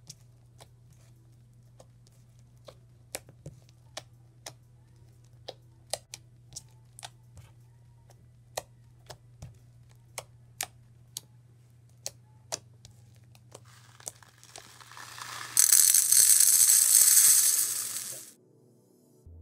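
Fishbowl slime squeezed and kneaded by hand, giving sharp, scattered clicks and pops, about one or two a second. Near the end a loud hissing rush lasts about three seconds, then stops suddenly.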